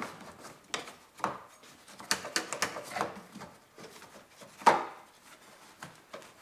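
Honda Civic's plastic windshield cowl cover being bent and pulled free by hand: irregular creaks, rubs and sharp clicks of the plastic panel, with one loud snap about three quarters of the way through.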